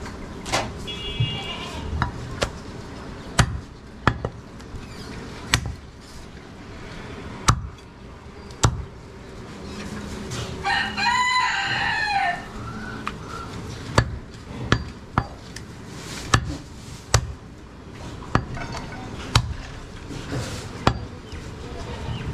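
A heavy butcher's knife chops and cuts goat meat on a wooden block, giving sharp knocks at an irregular pace, roughly a second apart. About halfway through, a rooster crows once for about two seconds.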